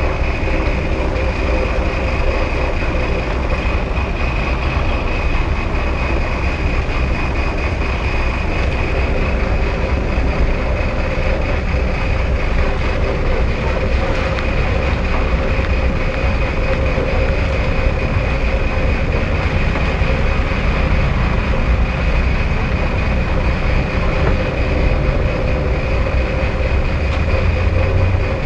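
Steady rumble and drone inside a passenger vehicle's cabin, heaviest in the low end, with a faint steady high tone running over it.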